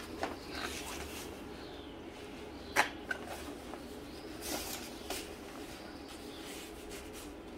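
A fabric backpack leaf-collection bag with hose being handled and put on: rustling fabric and straps, with scattered clicks and one sharp click a little under three seconds in.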